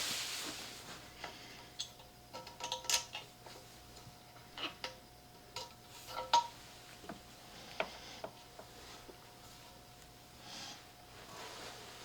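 Irregular light clicks and metallic clinks of hand tools and hardware being handled while taking apart a speaker cabinet. A dozen or so scattered taps, some ringing briefly, with the loudest about six seconds in.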